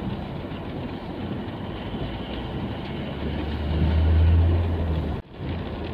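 A car driving on a wet road in rain, heard from inside the cabin: steady engine and tyre noise. A low engine drone swells about three seconds in, and the sound cuts out abruptly near the end.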